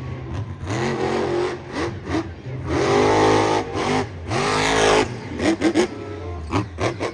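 A car engine revving several times, each rev a rising whine over a steady low rumble, the longest and loudest about three seconds in. Near the end come a run of short, quick throttle blips.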